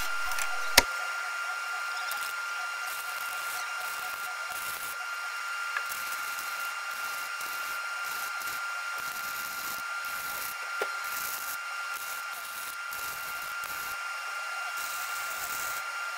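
Electric arc welding on a steel tube frame: a steady crackling sizzle of the arc with a thin steady whine underneath, and one sharp click about a second in.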